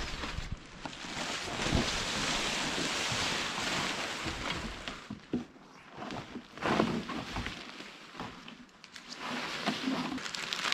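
Nylon tent fabric rustling and sliding as a dome tent is collapsed, loudest in the first half, followed by a few sharp knocks.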